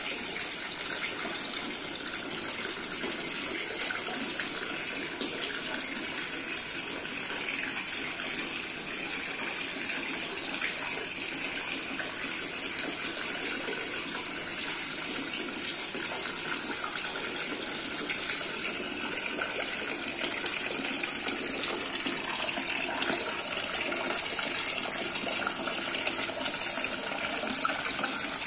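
Small garden water fountain: water pouring steadily from a clay pot spout into a basin below, recirculated by a small submersible pump. The splashing runs on without a break and grows a little louder near the end.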